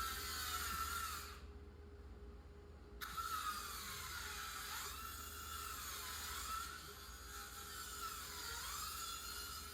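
Electric power tool, likely a drill or driver, whirring with a high whine whose pitch dips and rises repeatedly. The whine cuts out abruptly just over a second in and comes back at about three seconds.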